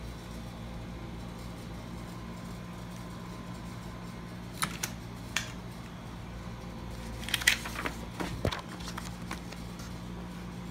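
Steady low room hum, with a few light clicks about halfway through and a short stretch of clicking and rustling handling noise a little later.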